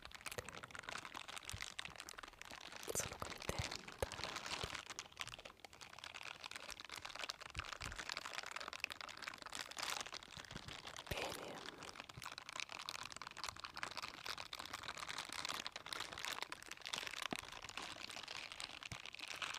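Silicone scrubber gloves with bristle pads rubbed and brushed right at a microphone, a dense, continuous crackling rustle made of many fine clicks.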